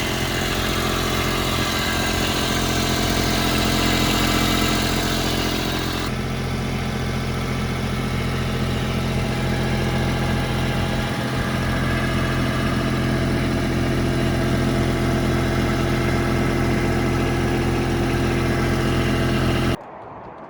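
Toro Dingo TX1000 compact track loader's engine running steadily, with a hiss on top that drops away about six seconds in; the sound cuts off suddenly near the end.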